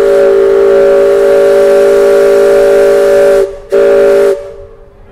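The Mark Twain Riverboat's steam whistle blowing, a chord of several steady tones: one long blast of about three and a half seconds, a brief gap, then a short blast of about half a second.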